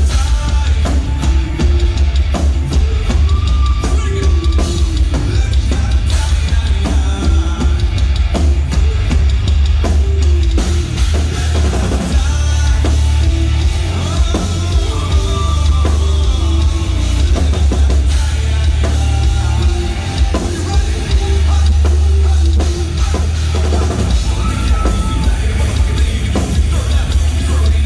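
Live hard-rock band playing at full volume: pounding drums and heavy bass under a singer's vocals, bass-heavy and continuous.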